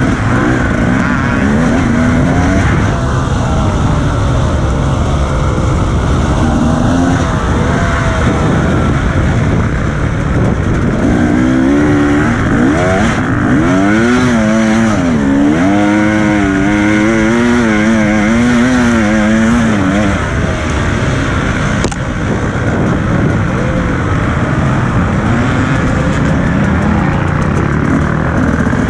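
Husqvarna TE300 two-stroke enduro motorcycle engine running under load, its revs rising and falling over and over with the throttle, over a steady rumble of wind and riding noise. The swings in revs are quickest and clearest about halfway through.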